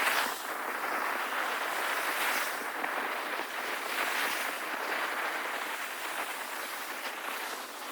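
Surf washing on a beach, a steady hiss that swells and eases every couple of seconds, mixed with wind.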